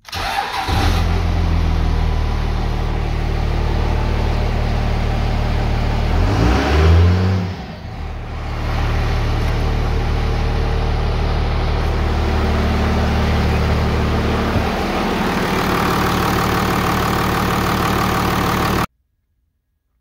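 1998 Dodge Ram's 5.9 L 24-valve Cummins diesel starting and running after its ECM has been warmed with a heat gun, revved once about six seconds in, then idling steadily; it cuts off suddenly near the end. Starting only once the ECM is warm points to a bad ECM.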